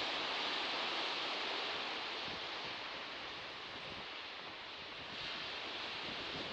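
Sea surf washing on a shore, a steady hiss that ebbs through the middle and swells again about five seconds in.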